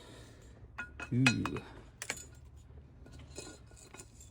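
Scattered light metallic clinks and clicks as the removed water pump is handled; the pump has failed, its bearing worn out.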